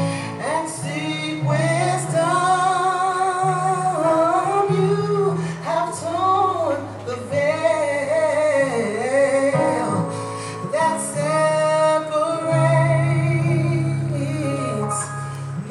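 Gospel worship music: a woman sings the melody with vibrato over held bass notes and instrumental backing.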